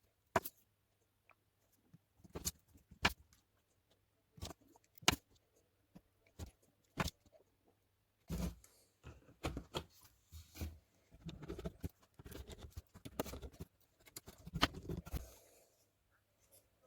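Small parts and tools being handled during the assembly of a 3D printed bracket with threaded inserts and screws: a string of separate sharp clicks and knocks, then from about halfway a busier run of rattling and scraping that stops shortly before the end.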